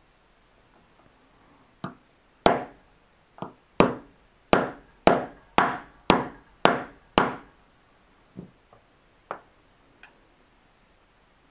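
A hammer tapping a 1/16 roll pin punch, driving the roll pin that locks the gas tube into an AR-15 gas block. There are about a dozen sharp metallic taps at roughly two a second, each ringing briefly, loudest in the middle of the run, then a few lighter taps near the end.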